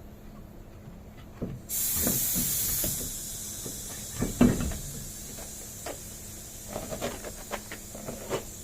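Compressed air hissing: it starts suddenly, loud, about two seconds in, eases after a second or so and goes on as a quieter steady hiss. Short knocks and clicks come and go over it, with one sharper knock about halfway.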